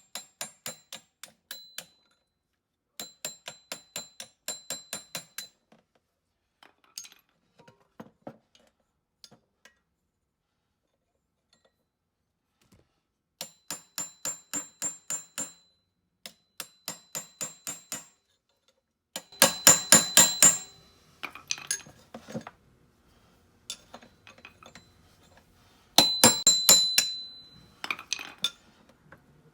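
Mallet tapping on a metal part of a key machine's motor in quick runs of strikes, about four or five a second, each with a bright metallic ring, working a stuck part loose. The heaviest runs come about two-thirds of the way in and again near the end.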